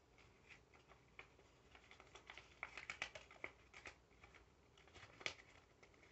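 Faint crinkling and crackling of a sheet of paper being folded and creased by hand: scattered small crackles, busiest in the middle, with one louder crackle near the end.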